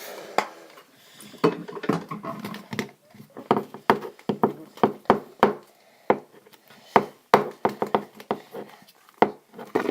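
Irregular clicks and knocks of small objects and containers being handled and set down on a hard surface, with some muffled rustling near the start.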